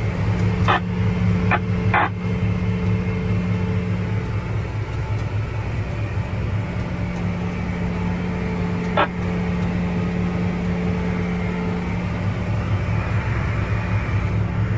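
Tractor diesel engine running steadily at an even pitch, with a few short sharp knocks: three in the first two seconds and one about nine seconds in.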